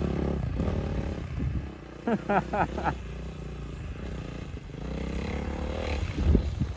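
Dirt bike engine running at a distance, a low steady rumble, with a few short high-pitched sounds about two to three seconds in.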